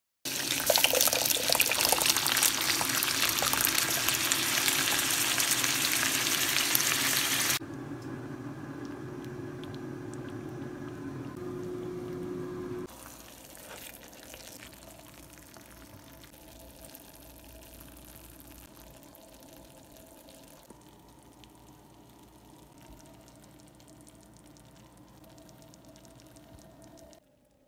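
Pot of water at a rolling boil as spaghetti goes in, loud bubbling and hissing for about seven seconds. It cuts off abruptly to much quieter simmering sounds, which drop again to a faint kitchen background about thirteen seconds in.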